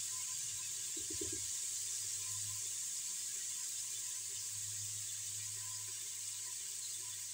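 Cumin, black peppercorns and chilli-ginger paste sizzling in hot ghee in an aluminium pressure cooker: a steady, high hiss. A brief knock sounds about a second in.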